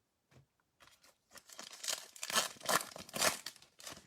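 Foil wrapper of a baseball trading-card pack being torn open and crinkled: a run of short, irregular tearing and crackling strokes starting about a second and a half in.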